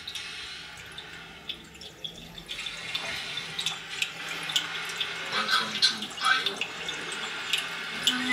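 Water running from a tap into a sink: a steady hiss with small drips and clinks that come more often after a couple of seconds, played back through small wall-mounted loudspeakers.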